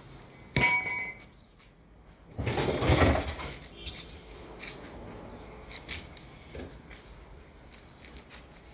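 A sharp metal clank that rings briefly, then about two seconds later a louder, longer rattling scrape, followed by a few light ticks. It is metal being handled at the damaged rear of a car during collision repair.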